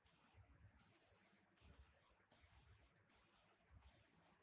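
Gravity-feed compressed-air spray gun hissing as it sprays paint, in a series of bursts of under a second each with brief breaks between, as the trigger is pulled again and again.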